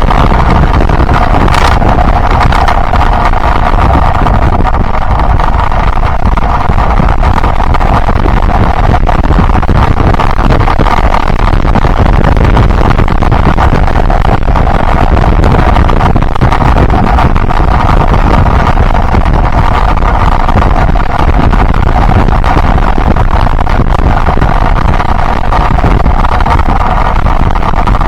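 Yamaha Byson motorcycle running steadily at road speed, with heavy wind rush on the microphone.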